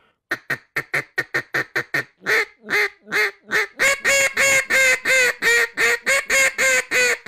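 Acrylic Duck Commander Jase Robertson Pro Series duck call blown in a run of mallard-hen quacks. It starts as quick short quacks, about five a second, and builds into longer, louder quacks from about two seconds in. This is the louder, more attention-getting acrylic call, as against the softer wooden version.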